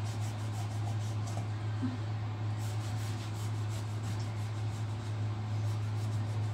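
Chinese cleaver scraping scales off the side of a whole fish on a wooden chopping board, in quick runs of short rasping strokes, over a steady low hum.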